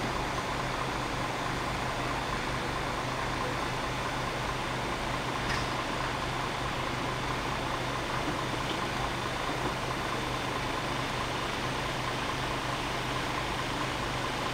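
Road-rail fire truck's diesel engine idling, a steady hum under an even hiss.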